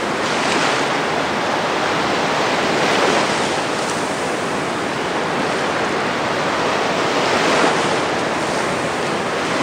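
Small waves washing up on a sandy beach: a steady rush of surf that swells and eases gently.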